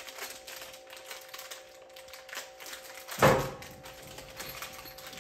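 Small mounting hardware and plastic packaging being handled on a workbench: rapid light clicks and taps, with one loud thud a little after three seconds in.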